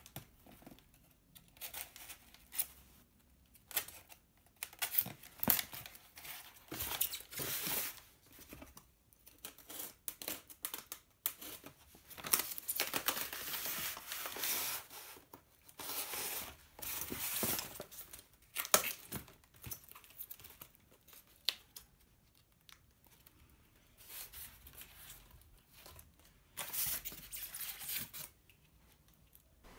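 Styrofoam packaging insert and cardboard box being handled during unboxing: foam rubbing and scraping against the box, with rustles and light knocks in irregular bursts.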